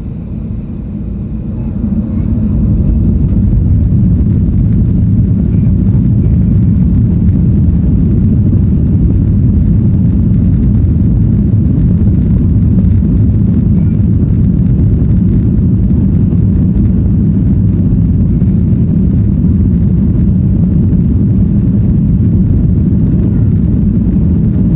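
Boeing 737-800's CFM56 jet engines heard from inside the passenger cabin, rising sharply about two seconds in as they spool up to takeoff thrust, then a loud, steady low rumble through the takeoff roll.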